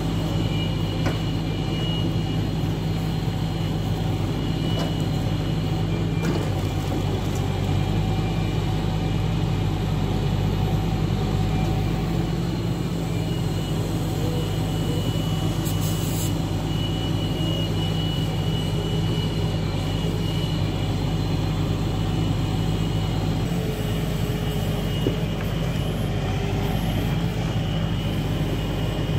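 Log truck's engine running steadily to drive its hydraulic log-loader crane, a constant hum with a thin high whine over it and a few faint knocks.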